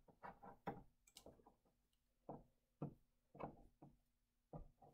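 Faint, irregular taps and clicks: a small white Apple charger block being fumbled and knocked against the floor of a cardboard box.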